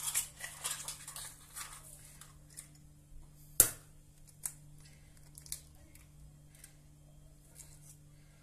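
Handling sounds while eggs are cracked into a glass mixing bowl: crackling and rustling for the first couple of seconds, one sharp knock about three and a half seconds in, then a few lighter clicks, over a faint steady low hum.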